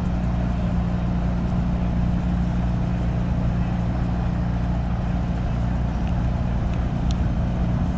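Tugboat's diesel engine running at a steady low idle, an even low hum with no change in speed.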